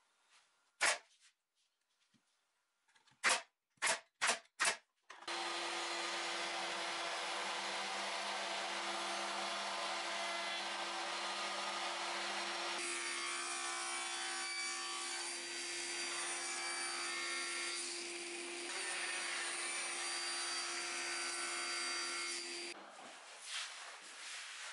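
A few sharp knocks of wooden pieces being handled, then a router mounted in a router table starts and runs steadily at high speed with a constant hum, cutting into a wooden chair part, and spins down near the end.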